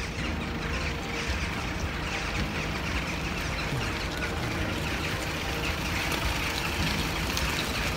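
A large flock of birds calling overhead, many short calls overlapping continuously, over a low steady rumble of street traffic.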